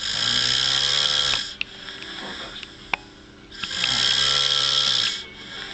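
A sleeping man snoring: two long, loud snores about three and a half seconds apart, each lasting well over a second, with a quiet gap between them.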